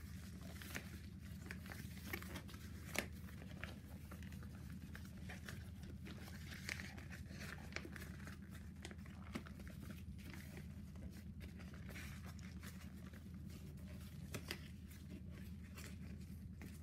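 Yellow padded paper mailer envelope crinkling and tearing as hands work it open, in irregular crackles with a sharper snap about three seconds in, over a steady low hum.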